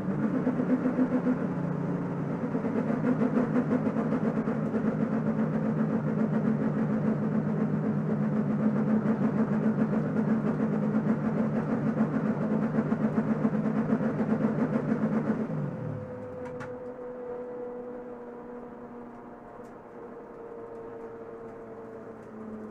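Holden Commodore race car's V8 running hard at racing speed, heard from the cabin; about 15 seconds in its note falls away and the engine dies, leaving a quieter whine that slowly drops in pitch as the car coasts. The engine cutting out is the electrical fault that ended this race.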